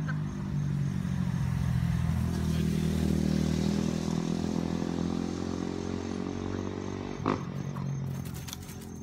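A motor engine running with a steady pitch. It grows louder over the first few seconds and fades toward the end, with one brief sharp knock about seven seconds in.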